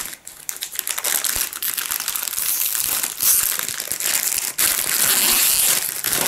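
A flexible plastic multipack wrapper crinkling and crackling as one hand squeezes, twists and pulls it, trying to open it. The crinkling gets louder from about halfway in.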